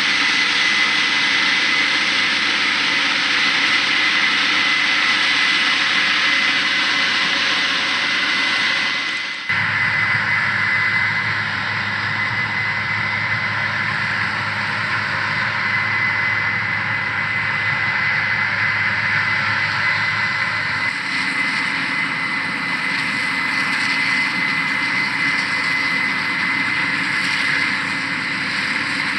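Case IH 8120 Axial-Flow combine harvester running while harvesting rice: a steady machine din with a high, constant whine over it. The sound changes abruptly about nine and a half seconds in, when a deeper rumble comes up, and shifts again about twenty-one seconds in.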